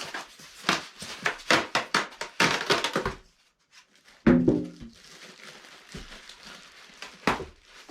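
Packaging rustling and crackling with quick clicks as a heavy diesel heater unit is worked out of its box, then a single heavy thunk a bit after four seconds in, and one sharp click near the end.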